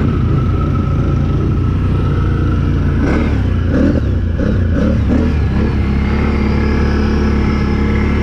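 Can-Am 1000 off-road vehicle's engine running with a steady low drone, with a short stretch of uneven sound about three to five seconds in.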